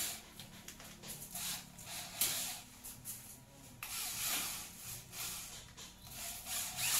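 Short hissing scrapes, each about half a second, against a galvanized hollow-steel frame being handled and fitted, over a faint steady low hum.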